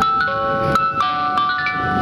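JNR-era train's onboard chime playing a bell-like melody over the car's public-address speakers, several notes a second, each ringing on into the next. It is the signal that an on-board announcement follows.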